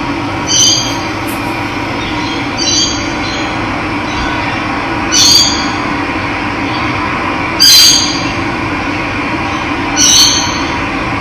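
Steady rushing of running water, with a bird giving a short, high call five times, about every two and a half seconds.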